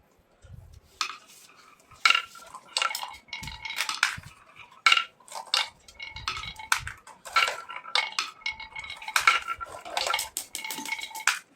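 Irregular clinks and clatters of small hard objects knocking together, beginning about a second in. Many strikes leave a brief ringing tone.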